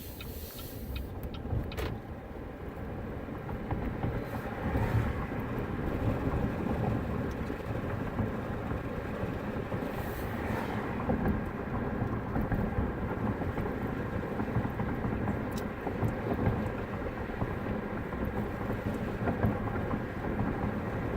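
Car driving, heard from inside the cabin: engine and road noise as a steady rumble, growing louder over the first few seconds as the car pulls away and picks up speed.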